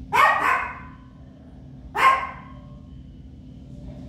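Small papillon dog barking: a quick double bark, then a single bark about two seconds later.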